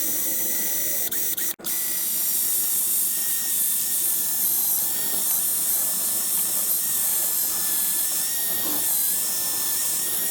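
Power drill with a titanium bit drilling out a pop rivet, running as a steady high whine with grinding. It stops for a moment about one and a half seconds in, then runs on.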